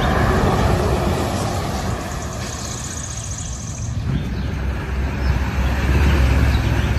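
Scania S650 truck's V8 diesel engine running as the tractor unit and trailer drive slowly past, a deep steady rumble that eases slightly midway and swells again near the end. A brief high whistle sounds around the middle.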